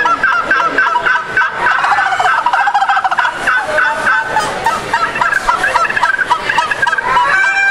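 Two turkey calls played together, a friction pot call scraped with a striker and a call blown at the mouth, imitating wild turkeys in rapid, stuttering runs of notes.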